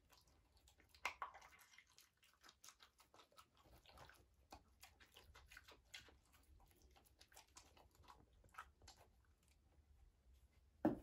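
German Shepherd dogs mouthing and chewing cranberries off a table: faint, scattered wet clicks and small crunches, with a sharper click about a second in and a louder one near the end.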